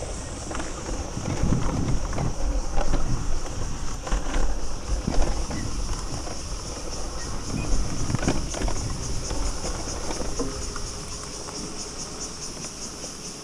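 Electric dirt bike ridden over a bumpy forest dirt trail: uneven knocks, rattles and thuds from the bike and its tyres on the ground, with wind on the microphone, easing off over the last couple of seconds. A steady high-pitched insect buzz runs underneath.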